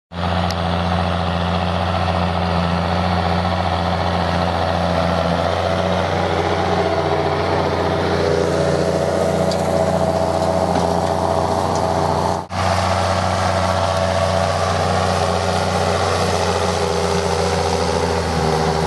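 John Deere 6520 tractor engine running steadily under load as it pulls a tine cultivator through the soil. The sound cuts out briefly about twelve seconds in and then resumes.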